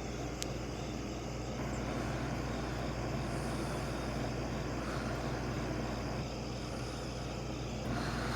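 1966 Admiral Royal 106 Series window air conditioner running on max: a steady hum from the compressor under the whoosh of its fan, with a brief click about half a second in.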